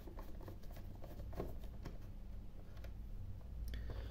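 Faint, scattered ticks and rubbing from a screwdriver and hands working the plastic housing of a battery charger while its small case screws are undone, over a low steady hum.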